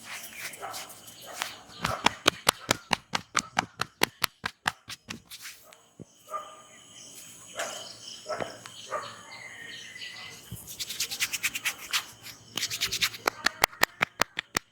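Rapid hand tapping of an Indian head massage: quick, sharp strokes in two runs, one a couple of seconds in and a faster, denser one near the end, with softer rubbing in between.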